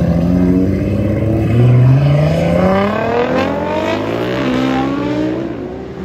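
A modified Nissan GT-R and a cruiser motorcycle accelerating away hard. Their engines rise in pitch again and again through several gear changes and grow fainter as they pull off down the road.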